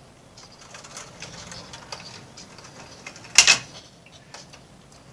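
Marble-run automaton running: light, irregular clicking and ticking from its moving mechanism and circulating marbles, with one louder clack about three and a half seconds in.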